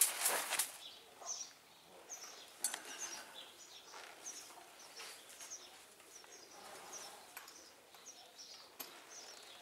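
A bird chirping over and over, short high notes about one or two a second, with a couple of faint sharp clicks.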